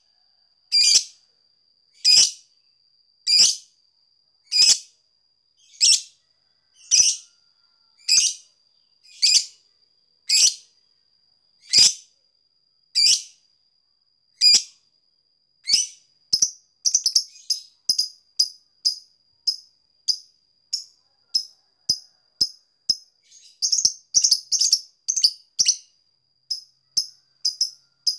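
Fischer's lovebird giving short, sharp chirps, one about every second at first, then from about halfway in breaking into quick runs of rapid clicking chirps: the 'ngetik' (typing) call. A faint steady high tone runs underneath.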